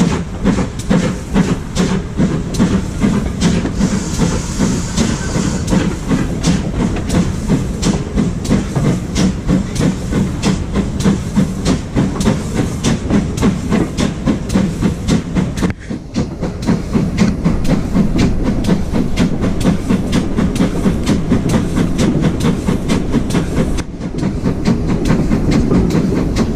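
A steam-hauled train in motion, the ex-GWR 2-6-2 tank locomotive No 5542 with its carriages, heard from a carriage window. Wheel and rail noise with a regular beat of about two to three pulses a second, which turns steadier after about sixteen seconds.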